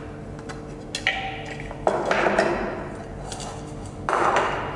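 The clear polypropylene bowl and lid of a food chopper being handled and set down on a table. There are light plastic clicks about a second in, then two short clattering, scraping bursts, one about two seconds in and one near the end.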